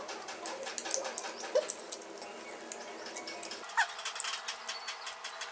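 Eating sounds: chewing and lip-smacking, a run of small irregular clicks from people eating chicken and rice with their hands.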